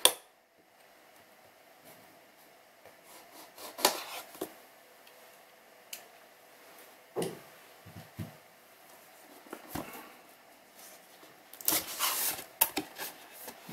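Handling a cardboard box: scattered light clicks and taps, then, nearly twelve seconds in, a short stretch of cardboard scraping and rustling as the lid is slid up off the inner box.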